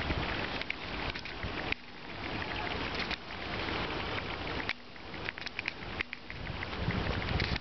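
Wind gusting over the microphone: a rough rushing noise that swells and drops, with scattered crackles.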